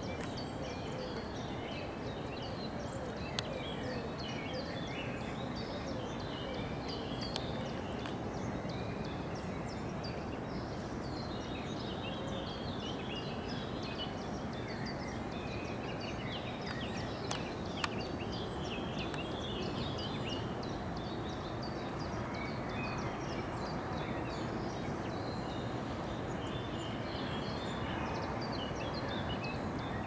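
Many small birds chirping and singing over a steady background noise, with a few faint sharp clicks.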